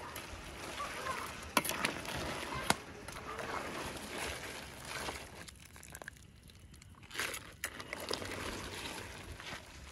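Big pot of crayfish boiling, the water bubbling and sloshing as a metal ladle stirs through it, with a few sharp clicks.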